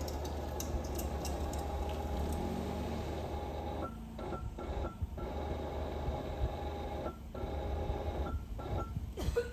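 Steady low drone of the Daihatsu Mira ES driving, heard from inside the cabin, cutting out briefly several times with faint short beeps during the dropouts.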